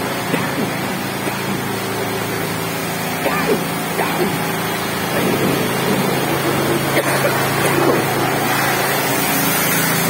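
Steady low machine hum under a constant broad hiss, with faint voices now and then in the background.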